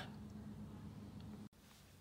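Near silence: faint room tone with a low steady hum, which drops out abruptly about one and a half seconds in and gives way to an even quieter background.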